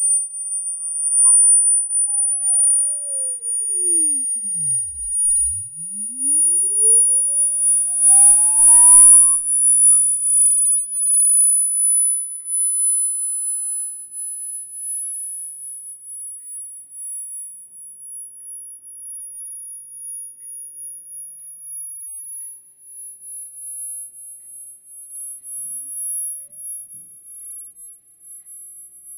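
Brass Chladni plate driven by a sine-wave sweep, giving a single very high, piercing tone that creeps slowly upward in pitch, about two-thirds of the way through a 50 to 16,000 Hz sweep. The tone grows quieter after about 13 seconds as the plate moves off a resonance, and a fainter lower tone glides down to nothing and back up in the first ten seconds.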